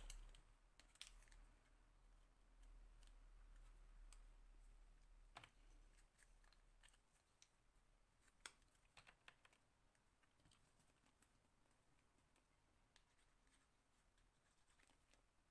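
Near silence, with a few faint clicks and taps of paper pieces and small craft tools handled on a cutting mat.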